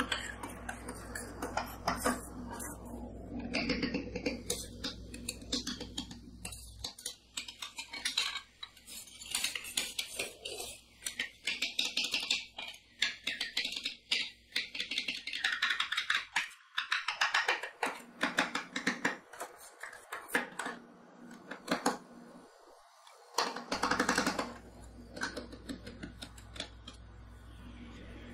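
Two steel spatulas chopping and scraping freezing Coca-Cola on the cold steel plate of a rolled-ice-cream pan: rapid, irregular clacks and scrapes of metal on metal as the frozen cola breaks into flakes.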